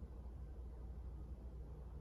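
Quiet room tone with a steady low hum and no thuds or footfalls.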